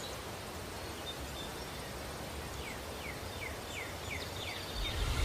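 Faint steady hiss of background noise, with a run of about seven quick, evenly spaced downward chirps in its middle. Music swells in just before the end.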